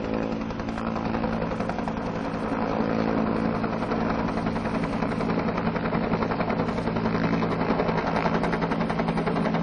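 Helicopter running, a fast steady rotor chop over a low turbine hum, slowly growing louder.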